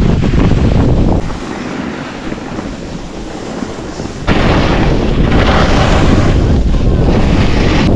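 Wind rushing and buffeting over the microphone of a camera moving down a ski run, with the hiss of skis sliding over packed snow. About a second in it drops much quieter for some three seconds, then comes back loud with more hiss.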